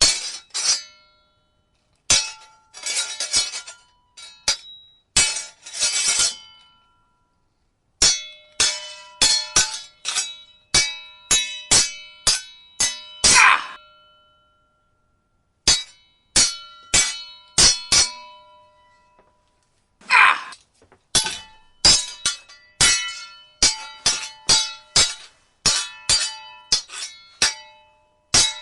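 Sword fight sound effect: metal blades clashing in quick runs of sharp, ringing clangs, with a few longer noisy strokes among them and short pauses between the exchanges.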